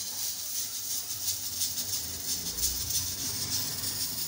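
Stovetop pressure cooker blowing steam through its whistle weight: a steady high hiss with a fast flutter, over a low rumble. The cooker is at full pressure, which the cook takes to mean the lentils inside are about half cooked.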